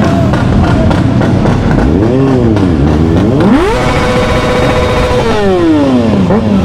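Sport motorcycle engine revving: a few short throttle blips, then a sharp climb to a high rev held steady for over a second before the pitch falls away as the throttle closes.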